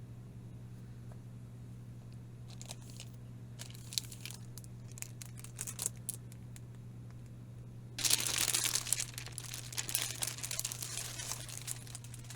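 Packaging being handled and torn open. There are scattered crinkles and clicks at first, then a few seconds of continuous crinkling and tearing starting about 8 seconds in, over a steady low hum.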